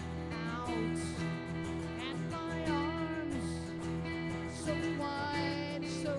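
Live band playing an instrumental passage: strummed acoustic guitars under a lead melody whose notes bend and waver, over a steady rhythmic pulse.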